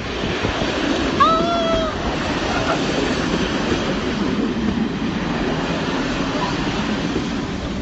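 Diesel multiple unit train passing close by: a steady, loud rumble of its diesel engines and wheels on the rails.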